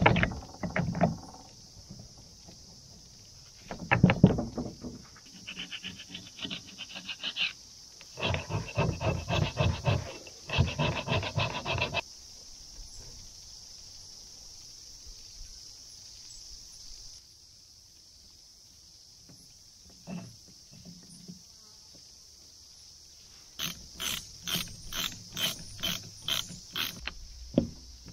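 Metal knocks and rapid runs of tapping and rattling from work on a mower gearbox's output shaft, as the bearing ring and collar are driven further on to take up slack in the roller bearing. Near the end there is a steady run of sharp taps, about three or four a second.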